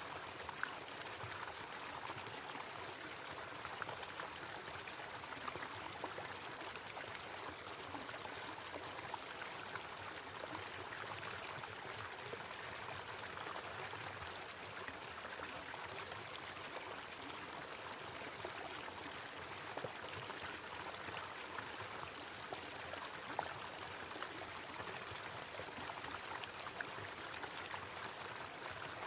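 Small waterfall splashing steadily: an even rush of falling water with scattered small splashes.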